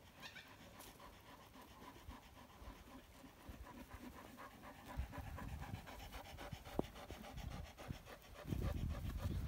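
Hampshire Down rams panting rapidly with fast, even breaths, several a second. A low rumble comes in near the end.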